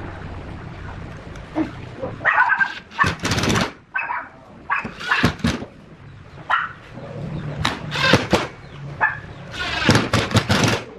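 A dog barking: several loud barks in groups, starting about two seconds in.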